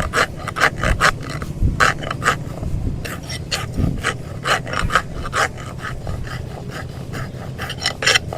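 Hoof rasp filing a donkey's hoof: quick, repeated scraping strokes in runs, with a short pause about two and a half seconds in and the strokes growing sparser in the second half.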